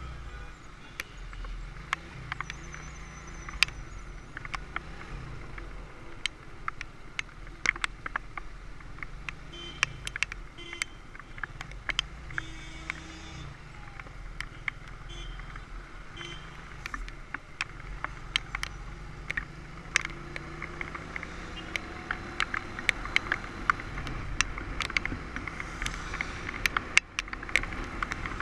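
Motorcycle engine running under way, its pitch rising and falling repeatedly as it pulls through the gears, over wind and road noise. Frequent sharp ticks and knocks come through it, growing more frequent in the last few seconds.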